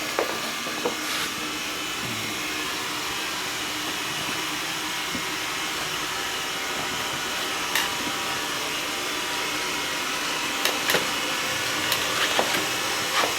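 Xiaomi Mi robot vacuum running steadily: an even whirring hiss from its suction fan and brushes, with a few short sharp clicks in the second half.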